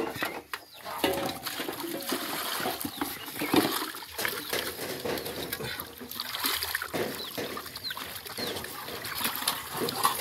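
Water sloshing and splashing in a metal cooking pot (sufuria) as it is rinsed and rubbed by hand with a sponge, with short bird chirps now and then.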